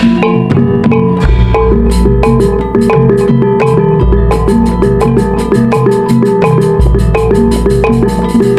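Javanese jaranan dance music played loud through a sound system: a quick, busy melody on tuned metal percussion over drums, with deep bass tones swelling and fading every few seconds.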